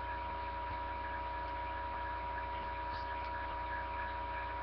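Steady electrical hum with a thin steady high tone over a low hiss: the background noise of a recording setup, with no other sound.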